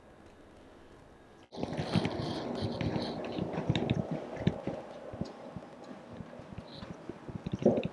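Faint room tone, then after about a second and a half a sudden cut to people walking down a carpeted hallway: footsteps with clothing and bag rustling and handheld-camera handling noise, a run of soft irregular knocks and clicks.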